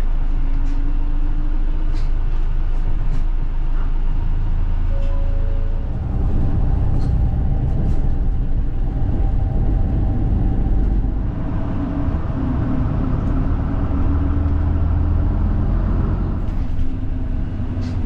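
Bus engine and road noise heard inside the passenger cabin, a steady low rumble whose engine note rises and falls as the bus changes speed, with a few small rattles.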